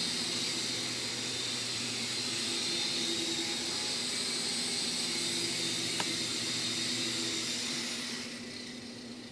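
World Tech Toys HeliCommand 3.5-channel micro RC helicopter's electric motors and rotors whirring steadily in flight, with a single sharp click about six seconds in. The whir falls away near the end as it lands and the rotors spin down.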